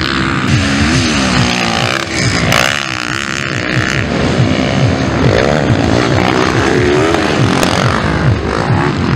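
Motocross bikes, four-stroke single-cylinder trail bikes of the Honda CRF 230/250 kind, racing past at full throttle, two or more at once. Their engine pitch climbs and drops again and again as the riders accelerate, shift gears and blip the throttle.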